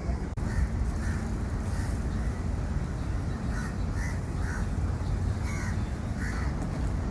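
Crows cawing repeatedly, a dozen or so short calls spaced unevenly, over a steady low rumble.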